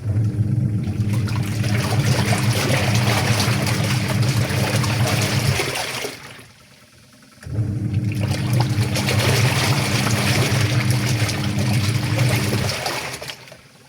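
Semi-automatic washing machine's wash motor driving the pulsator, with water and clothes churning in the tub. It runs for about five seconds, stops for a second or two, then runs again and stops near the end: the pulsator reversing direction in the standard wash cycle.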